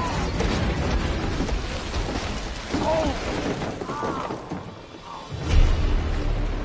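Action-film sound effects: crashing and mechanical clanking and whirring as a vehicle smashes through plastic crash barrels, then a heavy boom about five and a half seconds in.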